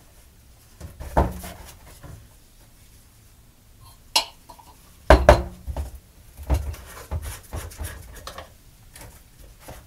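Scattered knocks and clinks of PVC plumbing work: white PVC pipe and fittings handled and set down, and a dauber worked in a metal can of purple PVC primer. A sharp click about 4 s in, a cluster of louder knocks about a second later, then several lighter knocks.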